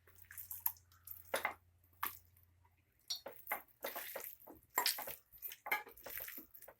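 Raw chicken pieces being mixed by hand into a thick egg, flour and spice marinade in a bowl: irregular wet squelching and slapping, sparse at first and busier after about three seconds.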